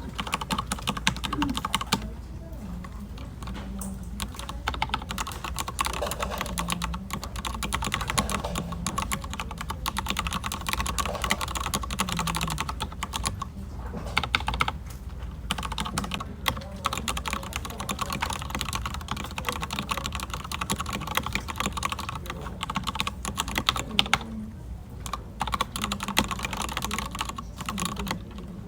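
Fast, continuous typing on a computer keyboard: a dense run of key clicks, broken by short pauses a couple of times.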